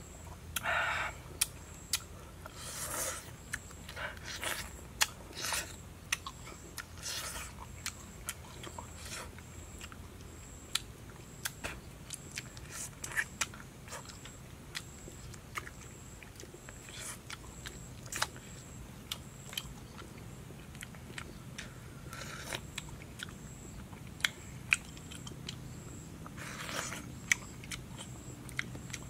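A man eating fish head soup from a wooden spoon, close to the microphone: wet chewing with many small mouth clicks and lip smacks, and short slurps now and then.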